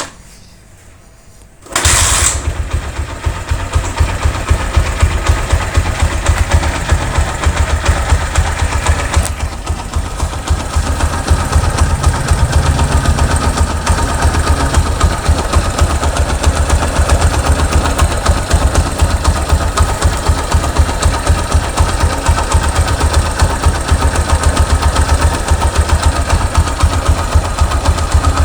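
Honda Megapro motorcycle's single-cylinder engine, which comes in abruptly about two seconds in and then runs steadily with a fast, even pulse.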